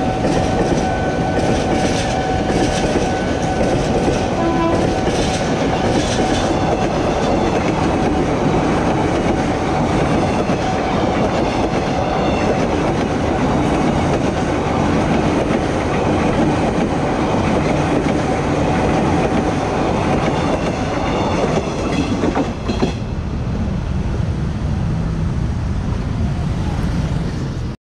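Commuter electric train passing close by at a level crossing, its wheels clattering over the rail joints, with a steady warning tone from the crossing alarm over it. The train noise drops away suddenly near the end.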